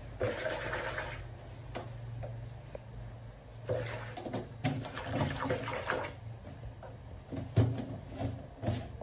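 Water sloshing in a plastic basin as a hand swishes washing detergent through it, with a few sharp knocks of a plastic detergent tub and its lid being handled.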